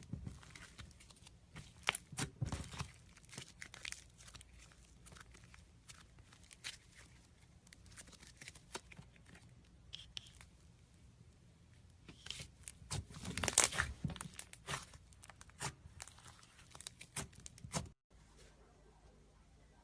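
Slime being squished and stretched by hand: many quick, irregular sticky clicks and crackles, thickest and loudest a little past halfway. They stop suddenly near the end, leaving a faint low hum.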